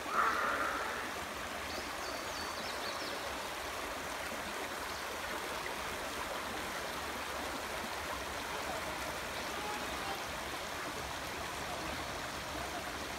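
Shallow rocky creek running, a steady trickling rush of water over stones, with a brief louder swell of noise right at the start.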